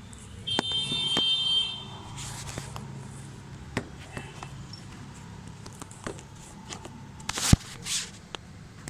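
A high buzzing, alarm-like tone lasting about a second near the start, then scattered sharp clicks and knocks, the loudest about three-quarters of the way through.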